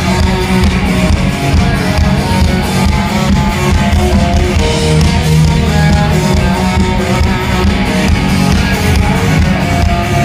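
Live rock band playing an instrumental passage: an electric guitar carries the melody over bass and drums.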